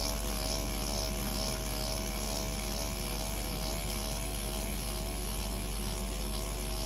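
Motorised microneedling pen buzzing steadily as it is moved over the scalp, its needles set to a depth of 1.5 mm.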